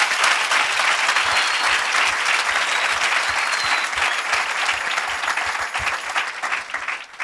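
A crowd of people applauding, many hands clapping steadily, thinning out and stopping near the end.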